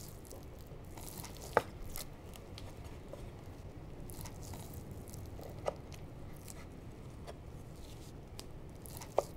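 Wide kitchen knife slicing through a rolled pork trotter, its skin giving a soft crunching, tearing sound under the blade. Three sharp knocks, about four seconds apart, as the blade meets the cutting board.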